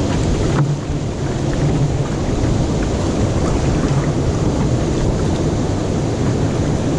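River rapids rushing with a steady, loud roar of white water.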